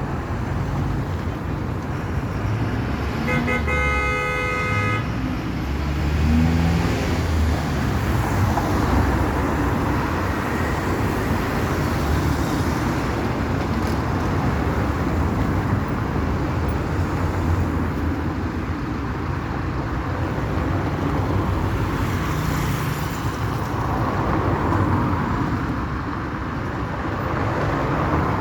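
Steady rumble of a motor vehicle running, with a horn blown once for about two seconds a few seconds in.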